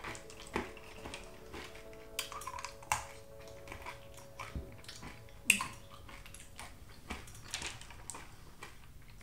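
M&M's candies being picked up off a table and crunched in the mouth: scattered sharp clicks and crunches with quiet gaps between, the loudest about three and five and a half seconds in.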